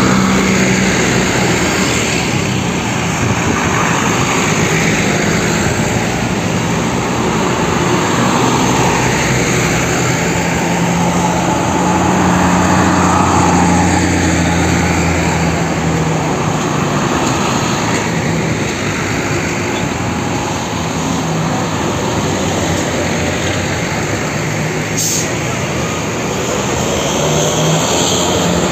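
Diesel engines of large tour coaches pulling away and driving past one after another, a steady low engine drone.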